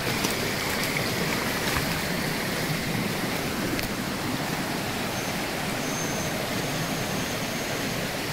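Jungle stream rushing over rocks, a steady even wash of water. A thin, high steady tone joins about five seconds in.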